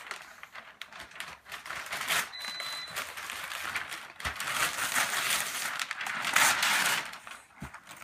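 Wrapping paper being torn and crumpled off a large gift: a run of quick rips and crackling rustles, loudest about six and a half seconds in.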